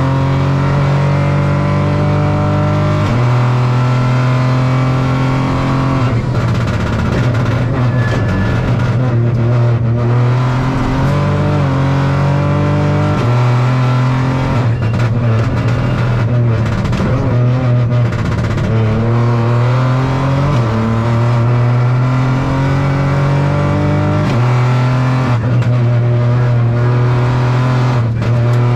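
Opel Corsa Rally4's turbocharged three-cylinder engine heard from inside the cabin at full stage pace, revving hard and changing gear again and again: the pitch climbs, then steps down at each shift, over a constant rush of road and tyre noise.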